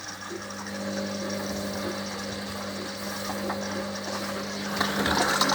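Washer dryer's motor starting up and running with a steady hum as the drum turns the load through the final rinse, growing louder near the end.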